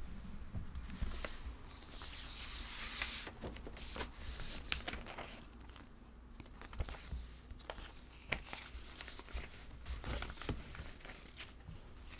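Sheets of paper being handled close to the microphone: a rustle about two seconds in, then scattered soft crinkles and clicks.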